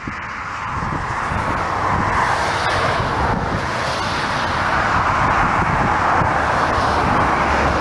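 Twin-engine jet airliner on final approach, its engine noise swelling over the first couple of seconds and then holding steady. Gusts of wind buffet the microphone underneath.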